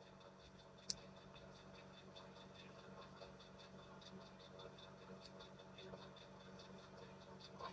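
Near silence: faint room tone with a low steady hum and light ticking, and one sharp click about a second in.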